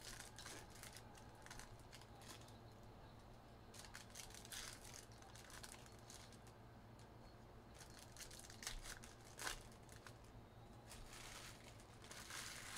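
Faint rustling and scraping swishes of trading cards being slid and flipped through in the hand, in a few short bunches, the clearest about two-thirds of the way in.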